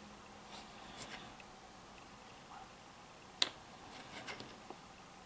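Small card model pieces handled on a cutting mat: faint rustles and soft taps, with one sharper click a little past three seconds in.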